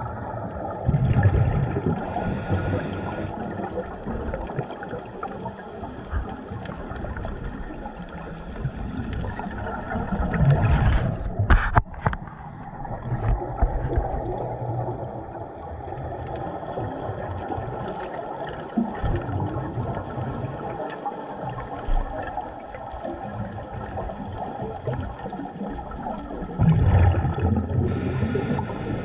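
Scuba diver breathing through a regulator underwater: loud bursts of exhaust bubbles about a second in, around ten seconds and near the end, over a steady muffled underwater rumble. Two sharp clicks near the middle.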